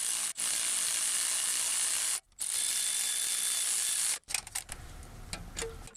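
Powered ratchet running a 13mm starter bolt in, in long steady runs with a short stop about two seconds in, then a few separate clicks over the last couple of seconds.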